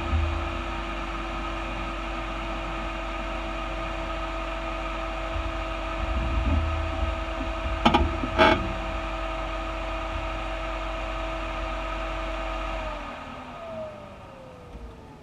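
Parked vehicle's engine idling with a steady hum, then switched off about thirteen seconds in, its tone sliding down as it stops. Two sharp clicks about eight seconds in.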